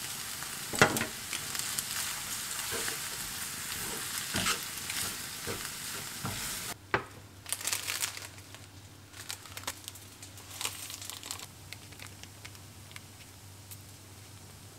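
Noodles sizzling in an enamelled cast-iron frying pan, a steady hiss with occasional sharp clicks. About seven seconds in the sizzle stops suddenly, and foil sachets of instant miso soup crinkle as they are handled and squeezed out.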